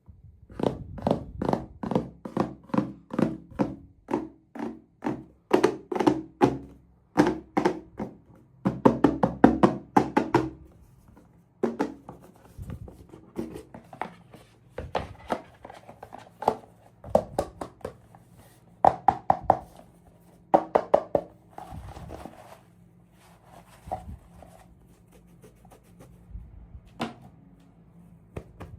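Hollow plastic knocks and taps, about two a second at first and then sparser and softer, each with a brief resonant ring: hard plastic toy packaging being handled and tapped during unboxing.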